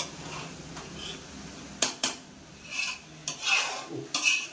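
Metal spatula stirring fried rice in a large metal pot, scraping and knocking against the pot's sides: two sharp clanks about two seconds in, then a few short scrapes.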